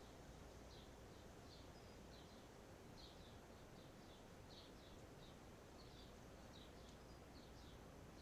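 Near silence, with a bird chirping faintly and repeatedly, about two short high chirps a second, over a low steady hum.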